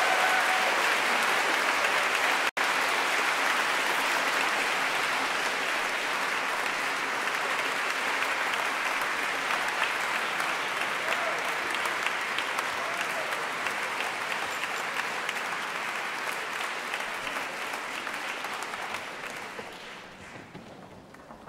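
Concert-hall audience applauding at the end of a performance, a steady dense clapping that dies away near the end. A very brief dropout in the audio comes about two and a half seconds in.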